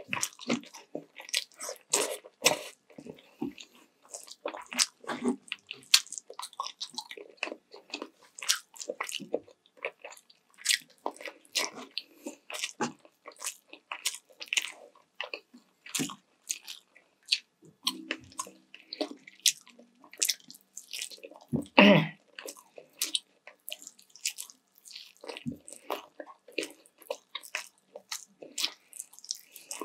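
Close-miked mukbang eating: a person biting and chewing sauce-coated sweet and sour chicken legs with rice, with quick wet lip smacks and mouth clicks several times a second. One louder, fuller mouth sound comes about three-quarters of the way through.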